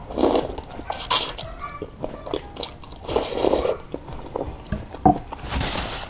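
A person slurping up a forkful of soupy egg noodles, with the loudest slurp about a second in, then chewing with wet mouth sounds. A soft rustle, likely a tissue, comes near the end.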